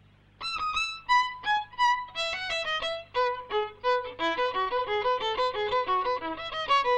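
A single violin playing a practice exercise, starting about half a second in. It begins with separate notes, then quickens after a few seconds into a run of short, even sixteenth notes.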